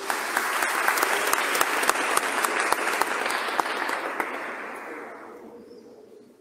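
Crowd applauding with many hands clapping. It starts at full strength and dies away over the last couple of seconds.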